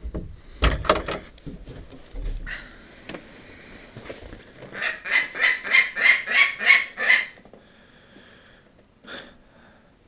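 A falcon giving a rapid run of about nine harsh calls, roughly four a second, lasting a couple of seconds, with one short call after it. Before the calls come a few knocks and rustles as the camera is moved near the microphone.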